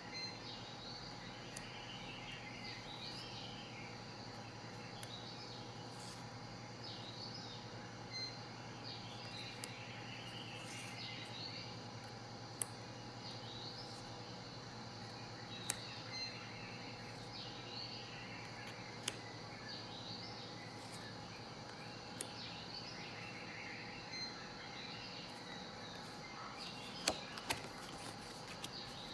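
Faint, repeated chirping of birds over a steady low hum, with a few sharp clicks of stiff playing cards being handled.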